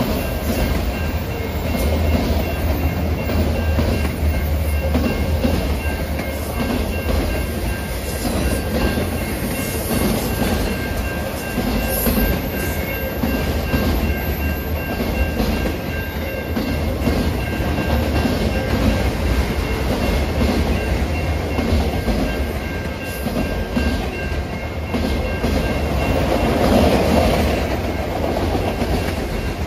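Freight train of autorack cars passing at close range: a steady rumble of steel wheels rolling on the rails, with faint high ringing tones running through most of it.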